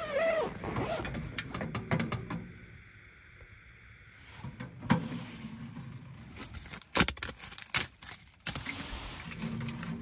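Handling of a stainless-steel camp wood stove: rustling of kindling and bark being loaded into the open firebox, with a few sharp metal clanks and clicks from the stove's door and grates, the loudest about five seconds in and twice more near the end.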